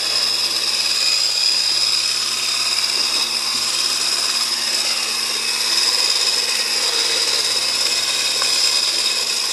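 Electric mixer running steadily in a bowl of cake batter, its motor making a constant high whine.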